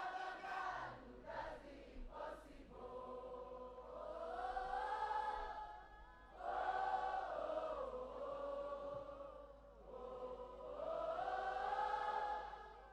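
A large crowd singing a gospel worship song together a cappella, in long held lines that swell and fade, about three phrases in all.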